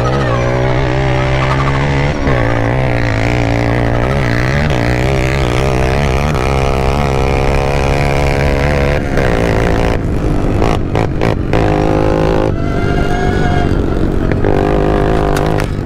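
Two off-road race buggies driven hard across dirt, heard from the cockpit of the Sierra Echo electric race car. Motor and engine sounds rise and fall with the throttle over tyre and gravel noise, turning choppier about nine seconds in.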